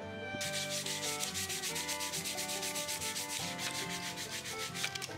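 A hand rubbing quickly back and forth over a plywood piece, like hand sanding, in fast even strokes of about nine a second that stop near the end.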